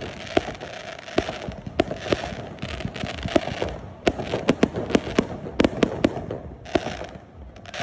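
Consumer aerial fireworks launched from the ground: a rapid, uneven string of sharp bangs with hissing between them as shells fire and burst, easing off near the end.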